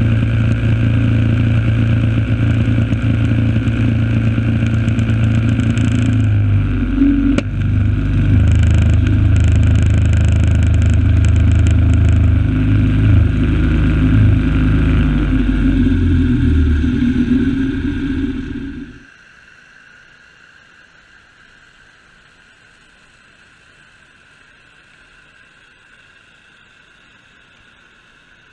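Predator 212 single-cylinder four-stroke engine running up close under load, its note shifting up and down in pitch. About 19 seconds in the sound drops suddenly to a faint, steady background.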